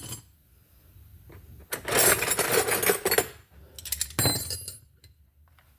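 Loose steel wrenches clattering and clinking together as they are rummaged through, then a second, shorter clatter of metal with a brief ringing about four seconds in.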